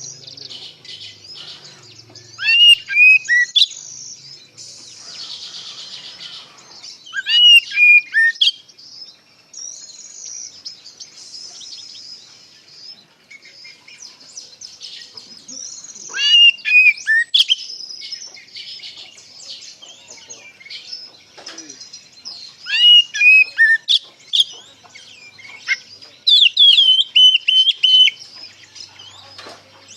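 Oriental magpie-robin (kacer) singing: loud, rich whistled phrases with sweeping notes come in about five bursts a few seconds apart, with a steady, fainter high twittering between them.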